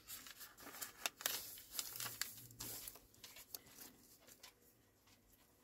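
Faint paper rustling and crinkling, with a string of small clicks and scrapes, as paper cut-outs are handled on an old book's page; it thins out after about four seconds.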